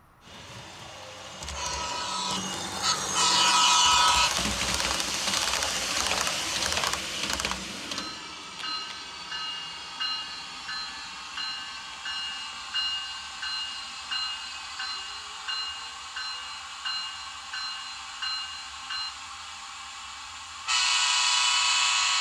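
TCS WOWSound ACS-64 sound decoder playing electric-locomotive sounds through the model's speaker. First comes a loud rushing run-up with short tooting tones, then a bell ringing steadily at about one and a half strikes a second for some ten seconds, then a long horn blast near the end.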